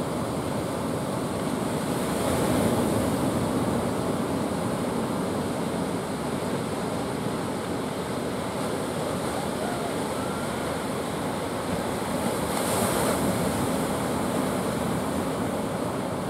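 Surf breaking on a beach: a steady rush of waves that swells louder and brighter twice, about two seconds in and again about thirteen seconds in, as waves break.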